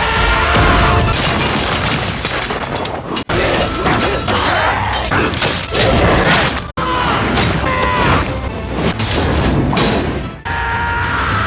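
Anime fight-scene soundtrack: dramatic music under repeated impacts, booms and shattering. The sound cuts off abruptly twice, about a third and two-thirds of the way through, as one scene jumps to the next.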